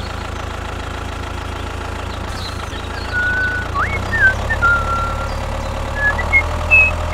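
Mini bulldozer running with a steady low engine hum. From about three seconds in, short high whistling chirps come and go over it.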